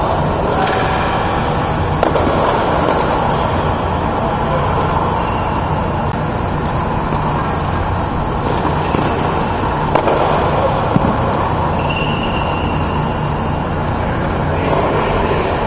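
Steady hum and rush of the ventilation blowers that keep an air-supported tennis dome inflated, with a few sharp knocks of a tennis ball.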